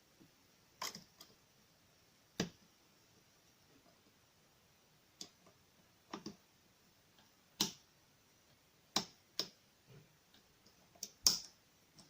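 Lock pick and tension wrench working the wafers of a small wafer lock: sharp, irregular metal clicks, about ten in all, with the loudest near the end.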